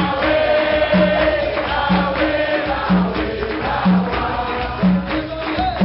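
Capoeira music: chanted singing over a steady percussion beat, with a low note struck about once a second and a lighter higher note between.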